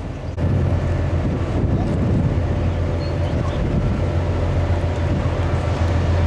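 Kalka–Shimla narrow-gauge toy train running, a steady low rumble that grows suddenly louder about half a second in.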